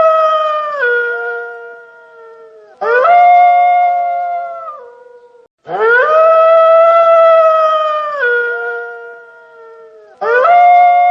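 Wolf howling: long, steady, high howls, each dropping abruptly in pitch near its end before fading. A new howl begins about every three seconds, and the same pair of howls repeats as a loop.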